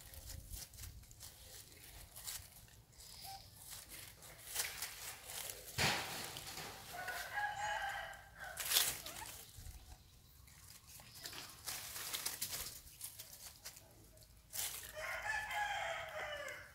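A rooster crowing twice, each crow about a second and a half long, about seven seconds in and again near the end, with several short sharp clicks or rustles in between, the loudest about nine seconds in.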